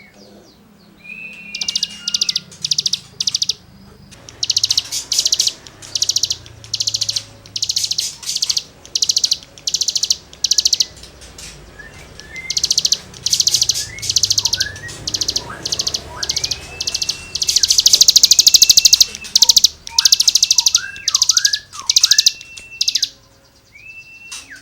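Cigun songbird singing its rasping 'gesekan' song: rapid harsh buzzy bursts, about one every half second, mixed with short whistled notes that slur up and down. A longer unbroken rasping run comes about three-quarters of the way through.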